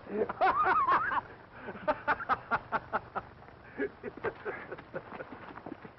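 Men laughing heartily. The laughter breaks into short bursts that trail off over the last few seconds.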